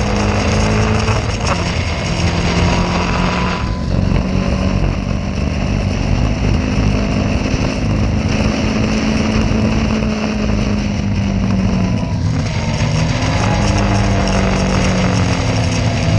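Caterham race car's engine running on track, heard onboard, its pitch rising and falling as the car changes speed, over a steady noisy rush.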